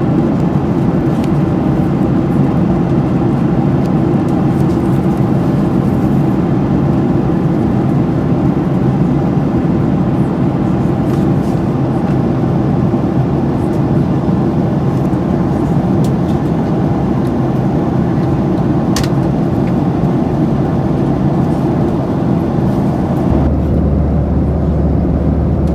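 Steady roar of air and engine noise inside the cabin of a Boeing 737-800 with CFM56-7B engines, heavy in the low end. Near the end the sound changes: the higher hiss falls away and a deep low hum comes in.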